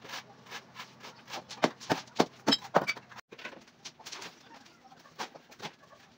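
Irregular sharp knocks of hand tools striking concrete and hollow blocks during demolition work, loudest in a quick run about two seconds in, a few with a short metallic ring.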